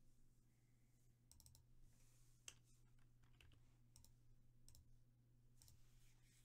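Near silence: faint computer mouse clicks, a quick cluster about a second in and then single clicks every second or so, over a low steady hum.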